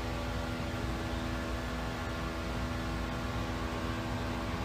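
A steady droning hum with hiss, unchanging throughout, with no distinct events.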